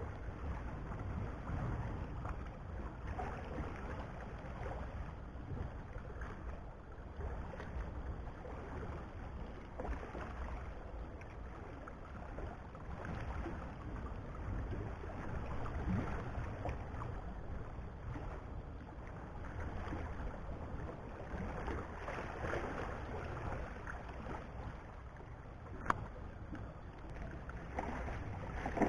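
Wind buffeting the microphone, with small waves lapping against the shoreline rocks. A single sharp click sounds near the end.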